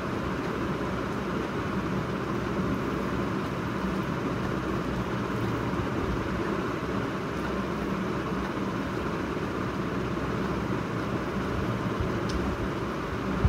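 Steady, even rushing noise of a ceiling fan running.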